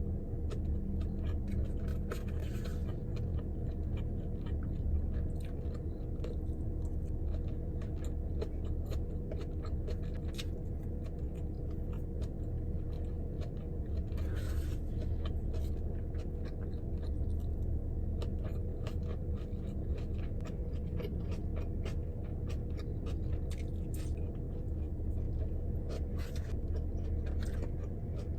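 Close-up chewing and eating mouth sounds, many small irregular clicks and smacks, over a steady low hum inside a car.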